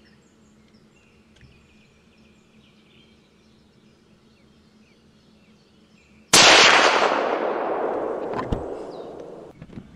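A single .308 Winchester rifle shot about six seconds in: a sudden loud crack followed by a long echo that dies away over about three seconds. Before the shot, only quiet outdoor background.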